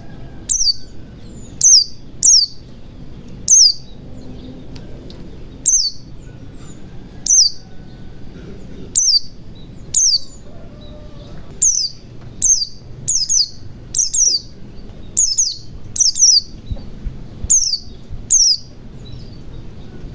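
White-eye (pleci) calling: short, high chirps that each fall sharply in pitch, repeated irregularly about every half-second to two seconds, sometimes in quick pairs, over a faint background hiss.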